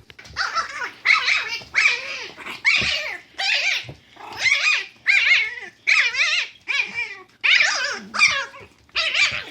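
A dog giving a long run of short, pitched barks and whines with a wavering pitch, about one and a half a second.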